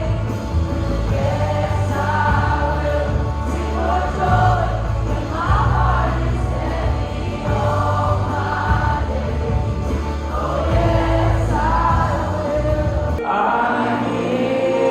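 Music in which a group of voices sings held notes over a heavy bass accompaniment; the bass drops out about 13 seconds in.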